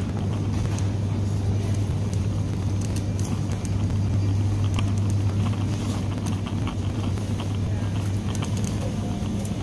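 Steady low hum of a supermarket's refrigerated display cases and ventilation, with faint scattered clicks.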